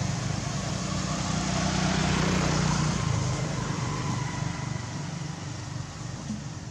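Motor vehicle engine running and passing, a low hum under road noise, loudest about two to three seconds in and then slowly fading.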